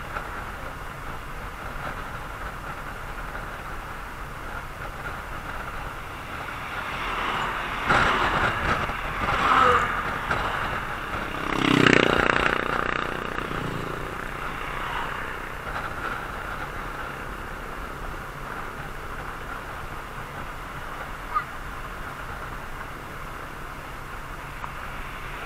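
Steady road and wind noise from a vehicle driving along a paved road. Louder swells of passing traffic come about 8, 10 and 12 seconds in, the third the deepest and loudest.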